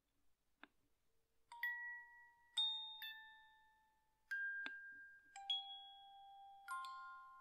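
Background music of sparse, slow bell-like notes, struck singly or in quick pairs about once a second, each ringing on and fading away.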